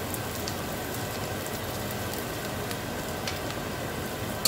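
Chopped onions, peanuts and curry leaves frying in oil in a stainless steel saucepan: a steady sizzling hiss as they start to brown, with a few light clicks of a metal spoon stirring against the pan and a sharper click at the very end.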